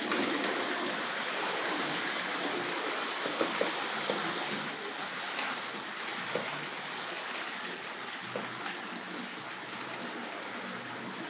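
Tri-ang Hornby M7 0-4-4 tank locomotive model running on the track with its coaches: a steady whirring rumble of motor and wheels, with a few light clicks as it runs over the rail joints and points.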